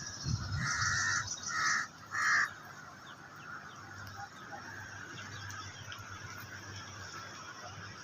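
Three short honks, the first the longest, all within the first two and a half seconds, over a steady faint low hum.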